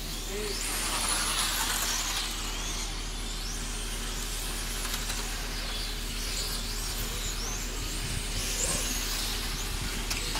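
Electric 1/10-scale PRO10 RC pan cars racing, their electric motors whining in high tones that rise and fall as the cars accelerate and brake, over a steady low hum.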